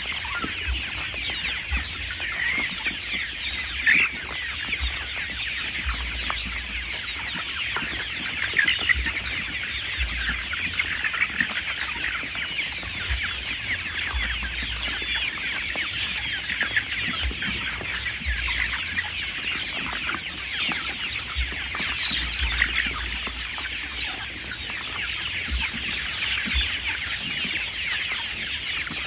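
A flock of 37-day-old chickens calling continuously, many overlapping high peeps and clucks, with low bumps now and then.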